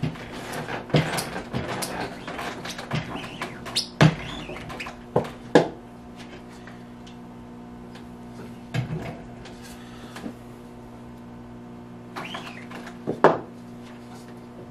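Squeegee scraping across the screen of a manual screen-printing press during a print stroke, followed by scattered knocks and clunks of the press and screen being handled. The loudest knocks come about four to six seconds in and again near the end, all over a steady hum.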